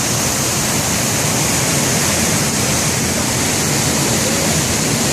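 River waterfall pouring steadily, a loud, even rush of falling water.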